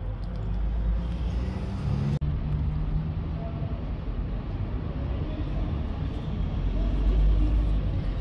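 Steady low outdoor rumble. It briefly cuts out about two seconds in.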